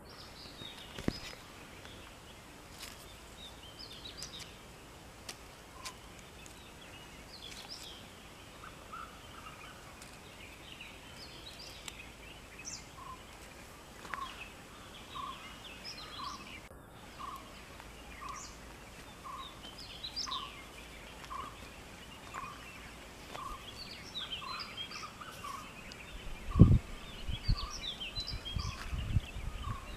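Birds calling and chirping, one of them repeating a short note about once a second. Several low thumps and rumbles near the end, the loudest sounds here.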